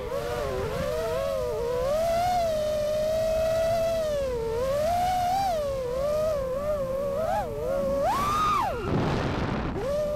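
5-inch FPV freestyle quadcopter's brushless motors whining, the pitch wavering up and down with the throttle. Near the end a hard punch sends the pitch climbing steeply, then the whine drops away into a rush of air for about a second before picking up again.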